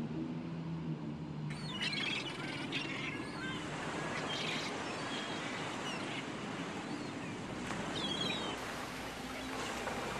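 Short, scattered bird chirps over a steady rushing hiss that comes in about a second and a half in, taking over from a low steady hum.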